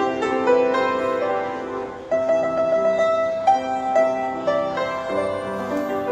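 Solo piano playing a slow, tender melody over held chords, with a fresh chord struck about two seconds in.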